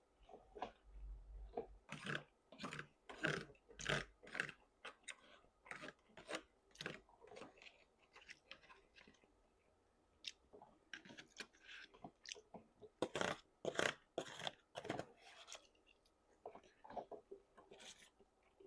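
A person chewing food close to the microphone, with short crunching clicks about twice a second and a lull of two seconds or so midway.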